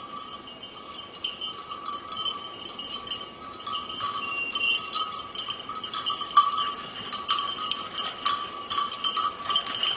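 Hunting dog's collar bell ringing unevenly as the dog works through dense bramble, the tone swelling and fading with its movement.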